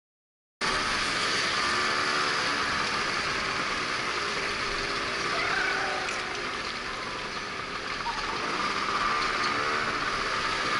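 Scooter ride through city traffic: the Yamaha Neos scooter's engine running under a steady rush of road and traffic noise, with cars and other motorbikes close by. The sound cuts in suddenly about half a second in, after a silent gap.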